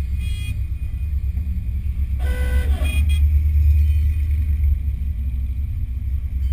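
A car horn honks once for about half a second, a little over two seconds in, with a brief higher beep near the start and another just after the main honk. Underneath is a steady low rumble of slow driving.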